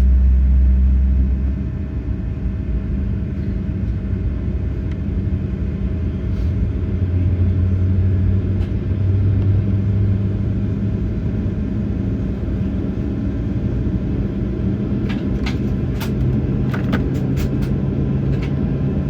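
Boeing 737-800's CFM56 jet engines running, heard inside the cabin as a steady low rumble and hum while the aircraft taxis, with a few light rattles near the end.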